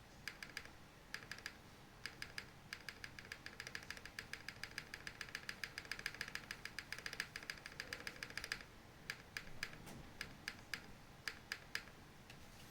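Typing on a Cycle8 mechanical keyboard fitted with frankenswitches (switches built from parts of different switches): short runs of keystrokes that turn into a fast, steady stretch of typing in the middle, a brief pause, then slower single key presses.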